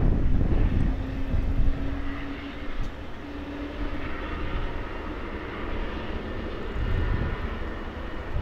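Airbus Helicopters AS365 Dauphin's twin turboshaft engines running on the ground with a steady turbine whine over a low rumble.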